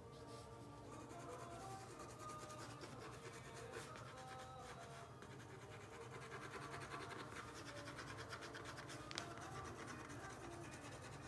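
Brush scratching and rubbing across paper in many short, repeated strokes as gouache is laid on, with one sharper click about nine seconds in.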